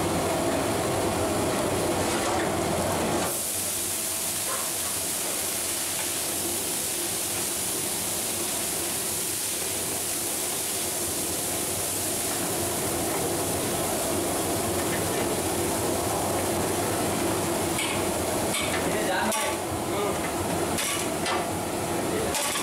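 Steady hiss of a gas burner under a large aluminium pot of boiling, spiced water. Near the end come a few metal clinks and scrapes of a flat steel spatula on the pot.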